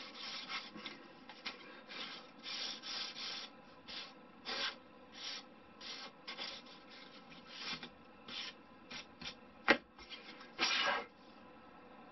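Hand sanding of a balsa wood glider wing panel with a sanding block: short rubbing strokes, quick and close together at first, then more spaced out. A single sharp knock comes just before one last, longer stroke near the end.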